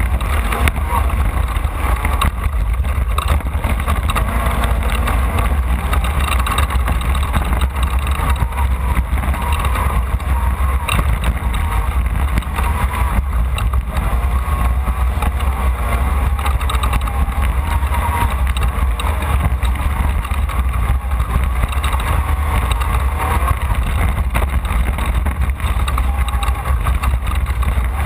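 Off-road race car driving at race speed: engine running with a loud, constant low rumble and road noise.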